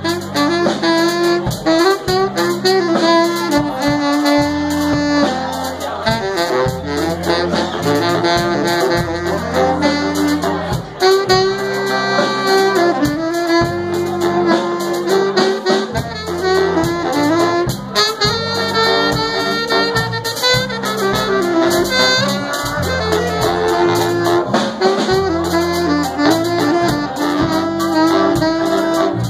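Live band playing: a saxophone carries the melody over drums with steady cymbal hits and a low bass line moving in steps.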